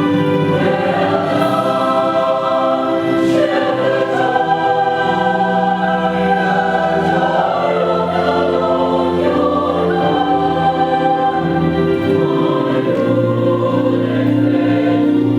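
Church choir singing an anthem in harmony, with long held chords.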